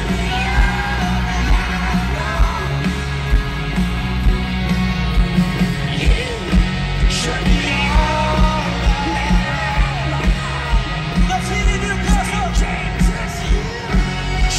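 Live rock band playing: electric guitars, horns and drums with a steady beat of about two hits a second, under male lead vocals sung and yelled into microphones.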